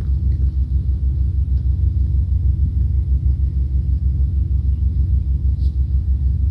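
Steady low rumble that pulses evenly, about seven times a second.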